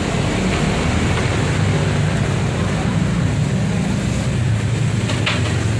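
Steady low rumble of road traffic, with no single vehicle standing out.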